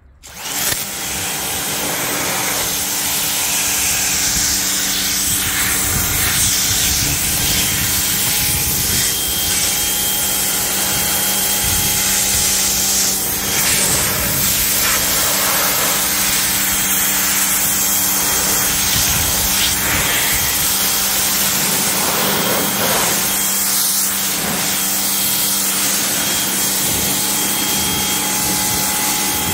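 Craftsman 1900 PSI pressure washer starting up suddenly about half a second in, then running steadily with a motor hum under the hiss of its water jet spraying over a car's paint and glass.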